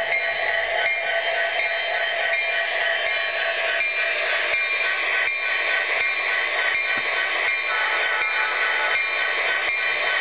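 HO scale model train's electronic sound system ringing a locomotive bell, one clang about every 0.7 seconds, over the steady running noise of the model train on its track, with a few faint clicks from the wheels.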